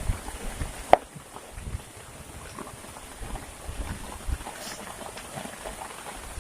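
Rain dripping and pattering in irregular drops and taps, with one sharper tap about a second in.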